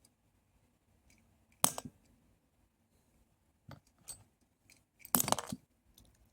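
Screwdrivers being whacked, giving a few sharp, separate clacks of hard objects striking: one about a second and a half in, two near four seconds, and a louder cluster about five seconds in.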